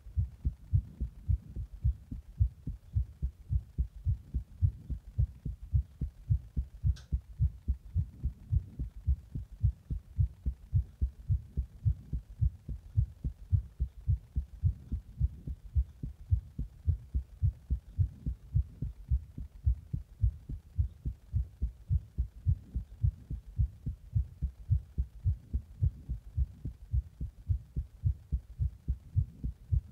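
A human heart beating in a steady, regular rhythm of low lub-dub thumps, recorded after an energy drink and a hot bath. There is a single faint click about seven seconds in.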